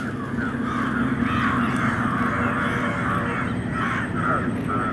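A crowd of birds calling at once in a dense, overlapping chorus of harsh, caw-like calls.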